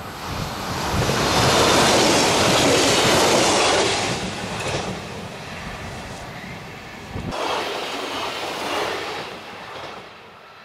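Alstom Coradia LINT diesel railcar passing close by, its engine and wheel noise loudest about two seconds in, then fading as it runs away. After an abrupt cut about seven seconds in, a second pass-by rises and fades again.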